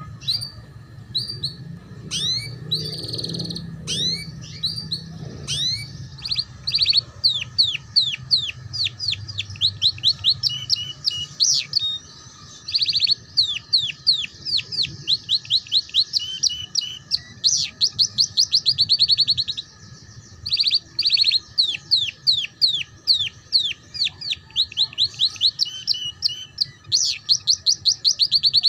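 Domestic canary singing a 'ngeriwik' song: long rolls of rapid, falling high whistled notes, at times sped into a fast trill, broken by short pauses about twelve and twenty seconds in. The song is of the kind used as a 'pancingan' (lure) to prompt young canaries to sing.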